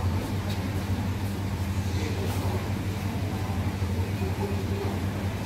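Live seafood tank's aeration pump humming steadily, with air bubbling through the water as a constant hiss.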